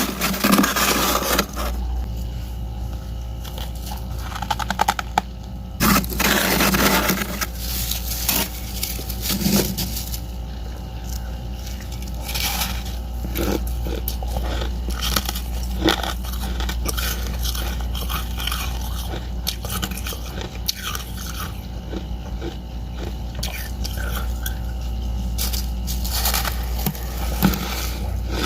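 Chewing and biting dry freezer frost, a run of crisp crunches and scrapes with a few louder bursts, over a steady low hum.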